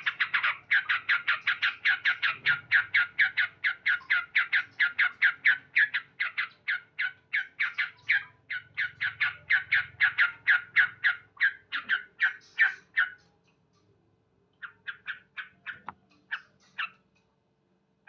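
Male yellow-vented bulbul calling a long, fast series of sharp 'cuk' notes, about four a second. The series stops about thirteen seconds in, and a shorter run of the same notes follows after a brief pause.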